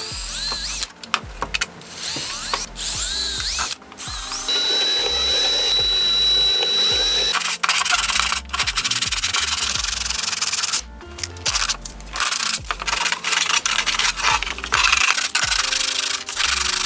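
Cordless drill running in several short bursts with a high whine, boring holes through a 3D-printed plastic shell. From about halfway on, sandpaper is rubbed by hand over the plastic in quick scratchy strokes.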